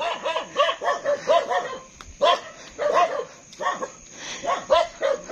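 Dogs barking in quick runs of short barks, with brief lulls about two seconds and about four seconds in.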